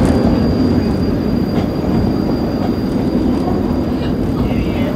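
Passenger car of the narrow-gauge Cedar Point and Lake Erie Railroad rolling along the track: a steady rumble of wheels on rails, with a few faint clicks.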